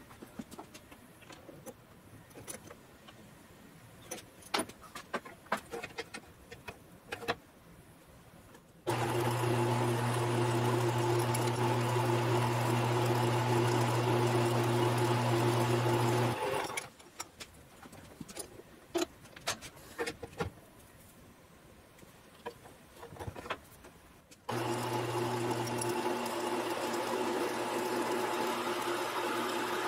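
Small metal lathe's electric motor running with a steady hum, switched on about a third of the way in, off again about seven seconds later, and on again about two-thirds of the way in. Between the runs come light clicks and knocks of the chuck and tools being handled. During the last run a drill in the tailstock bores into a part held in the chuck.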